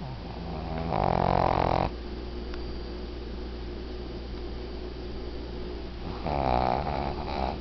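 An elderly Shih Tzu, a short-nosed breed, snoring in its sleep: two loud snores about five seconds apart, each lasting about a second, with a buzzing flutter. She has snored like this all her life.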